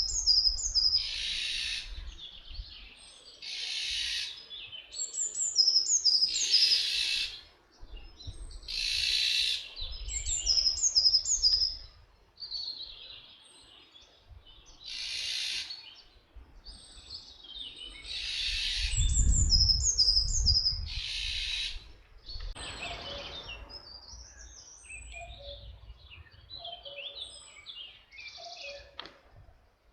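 Eurasian jay (Iberian race, Garrulus glandarius fasciatus) giving its harsh, rasping screech about seven times, with quicker, high chirps from other small birds between the screeches. A brief low rumble comes about two-thirds of the way through.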